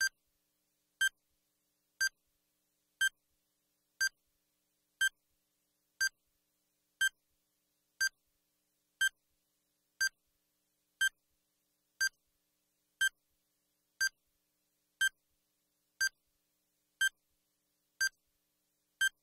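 Countdown timer beeping once a second: a short, high electronic beep on each second as the time to answer runs down.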